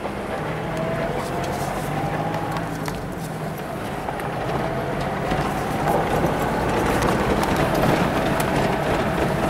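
Mitsubishi Montero 4x4 driving slowly over a gravel track, heard from inside the cabin: a steady engine hum under tyre noise from the loose stones, with scattered small knocks and rattles. It gets louder from about six seconds in.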